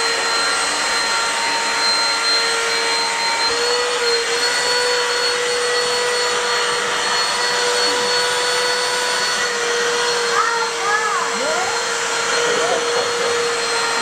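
Cordless handheld vacuum cleaner running steadily on sofa cushions, a constant motor whine over a hiss of airflow.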